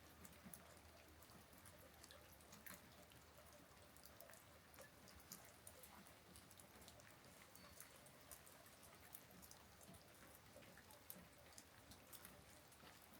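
Light rain: scattered raindrops landing irregularly, faint sharp ticks over a soft, steady hiss.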